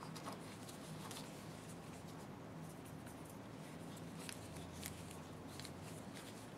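Faint, scattered small clicks and light scraping of small parts being handled and greased by hand, over a low steady hum.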